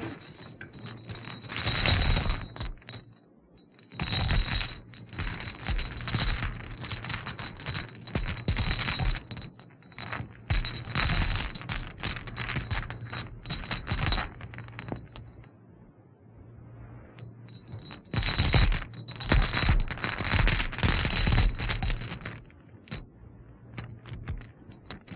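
Haunted-house sound effect: a dense clinking, rattling clatter over a steady high ringing tone and a low hum. It eases off for a few seconds about two-thirds of the way through, comes back, then cuts off abruptly.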